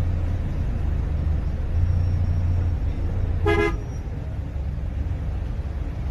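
Steady low rumble of vehicle engines in street traffic, with one short vehicle horn toot about three and a half seconds in.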